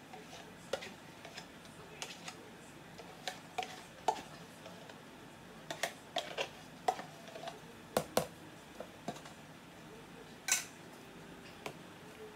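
Plastic container of thickened cream being squeezed upside down over a bowl: irregular clicks and crackles of the plastic, with one longer, louder crackle about ten seconds in.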